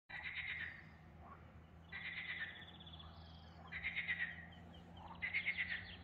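Frogs calling: four short rattling calls, each a quick run of pulses lasting under a second, repeated about every two seconds.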